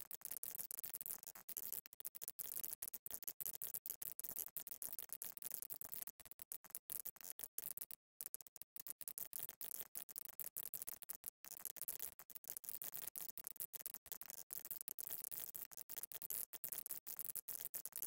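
Typing on an Epomaker TH80 Pro mechanical keyboard: a rapid, almost unbroken clatter of key clicks, with brief pauses about eight seconds in and again a few seconds later.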